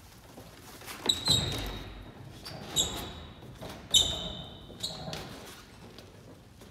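Shoes and hands knocking and squeaking against the panels of a ninja-course spider wall as a person bridges between the two walls: about five sharp knocks, most with a short high squeak, the loudest about four seconds in.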